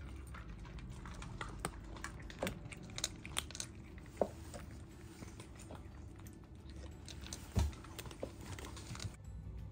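A cat chewing dry kibble from a ceramic bowl: small, irregular crunches and clicks, with one louder dull knock about seven and a half seconds in.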